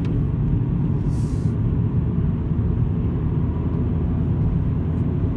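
Volkswagen Golf Mk5 on the move: a steady low rumble of road and engine noise, with a few faint ticks.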